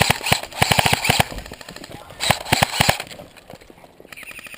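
Airsoft electric rifle firing on full auto: two bursts of rapid, evenly spaced shots, the second starting about two seconds in.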